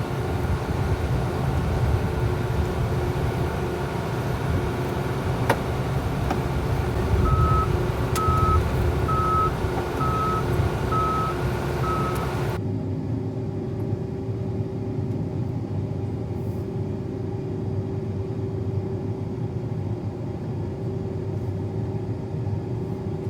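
Combine engine running steadily, with its reverse alarm beeping about six times, about one beep a second, from about seven seconds in to about halfway. About halfway through the sound changes abruptly: the higher hiss drops away while a steady engine hum goes on.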